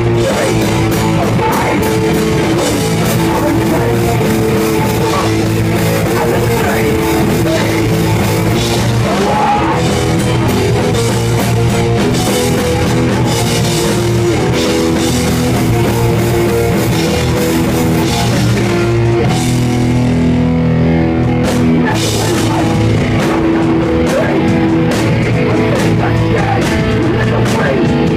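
Hardcore punk band playing live and loud: distorted electric guitar and a pounding drum kit, with the top end of the mix thinning briefly about two-thirds of the way through.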